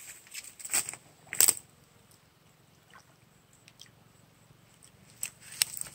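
A hand rummaging through weeds in shallow, muddy pond water, making a few short, sharp rustles and splashes. The loudest comes about a second and a half in, and a cluster follows near the end.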